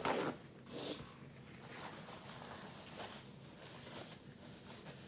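Faint rustling and handling noises, with a brief scrape or rustle a little under a second in.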